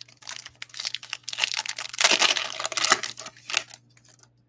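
Crinkling and rustling of trading cards and a foil card-pack wrapper being handled, with many small crackles, loudest a little past the middle.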